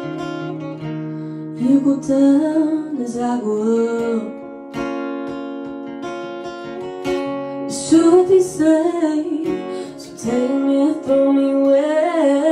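Acoustic guitar strummed in slow chords while a young woman sings into a microphone. Her voice comes in phrases, with the guitar alone between them.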